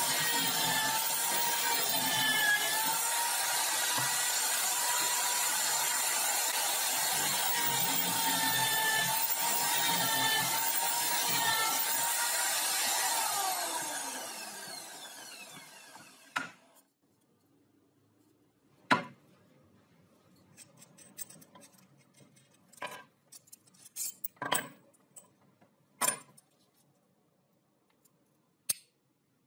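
Electric drill mounted in a homemade wooden drill stand, running while it bores into a pine block, its motor tone wavering under load; about 14 seconds in it winds down and stops. After that come a few scattered clicks and taps of small parts being handled on a wooden workbench.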